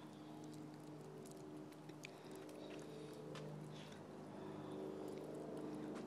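Fox squirrel gnawing at a nut held in its paws: a few faint, sharp crunching clicks, over a steady low machine hum.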